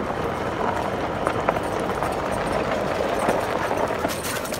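Steady rustling and crunching of dry leaves and grass underfoot, with small crackles throughout, from a person walking and a Labrador running across leaf litter.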